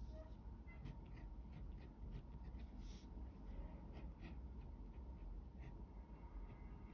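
Pen tip scratching on paper in a series of short, uneven strokes as characters are handwritten.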